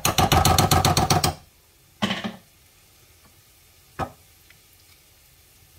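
A metal teaspoon knocking rapidly against a frying pan, about ten knocks a second for just over a second, as butter is shaken off it into the pan. A shorter clatter follows about two seconds in, and a single sharp knock about four seconds in.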